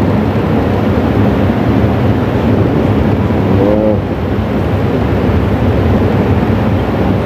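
A man's voice chanting Arabic dhikr recitation in a large mosque, half buried in a loud, steady rushing noise; one drawn-out melodic phrase stands out about three and a half seconds in.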